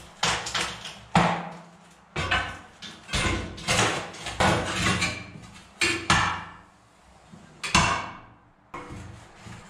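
Metal clanks and knocks as a hand truck and crowbar are levered and scraped against a steel oil-fired furnace to shift it: about ten sharp hits with short ringing tails, the last loud one near the end.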